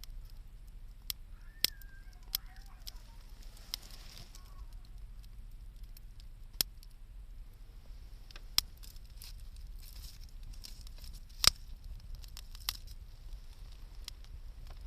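Wood campfire crackling, with sharp single pops every second or two over a steady low rumble; the loudest pop comes a little past halfway.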